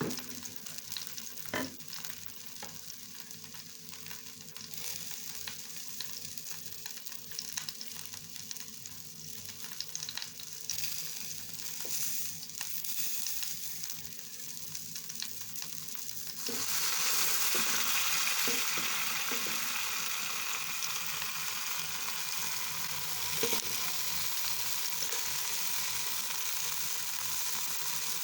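Food sizzling in a frying pan, with occasional light clicks of stirring. The sizzle turns suddenly louder and brighter a little past halfway.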